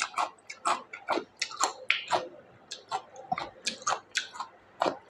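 A person chewing food close to the microphone, with short, irregular mouth smacks about three times a second.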